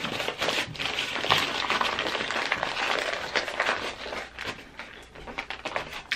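Foil-lined paper sandwich wrapper crinkling and crackling as it is folded up around a sandwich. The crinkling is busiest for the first few seconds, then thins to a few scattered rustles.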